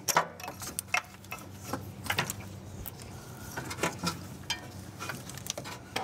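Handling noise of the O2 sensor wiring harness in its corrugated plastic loom and plastic retaining clips being fed upward by a gloved hand: irregular sharp clicks and rustling, over a faint steady low hum.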